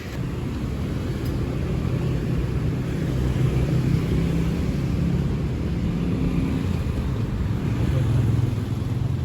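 Steady low rumble of a vehicle's engine and road noise.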